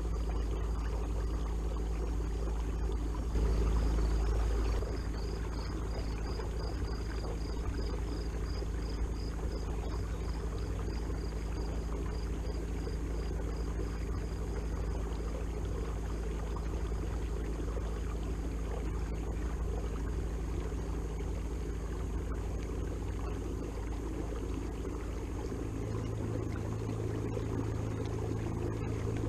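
Watersnake T24 electric trolling motor running steadily, a low hum over water washing past the kayak's hull. Briefly louder about three seconds in, with a faint high pulsing tone repeating for about ten seconds after it; the hum's tone shifts near the end.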